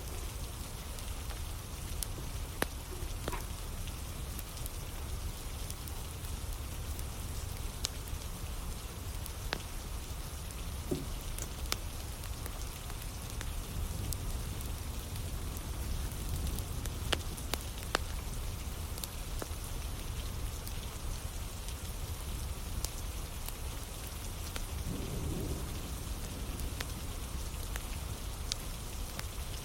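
Steady rain falling on a surface, mixed with a wood campfire burning, with sharp crackling pops every few seconds.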